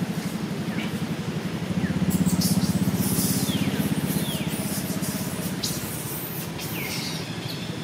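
A small engine running steadily with a fast low throb, with about five short high chirps falling in pitch over it.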